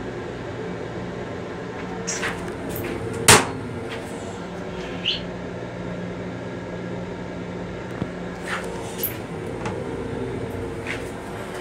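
Steady hum of an M7 commuter railcar heard inside its small restroom, with scattered clicks and rattles and one sharp knock about three seconds in.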